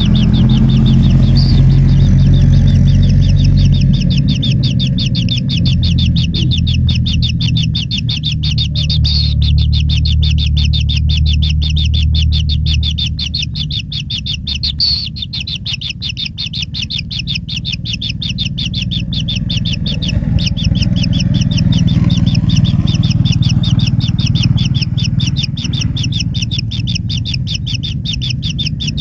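Kingfisher nestlings churring: a fast, steady ticking trill of about eight pulses a second, over a low steady hum.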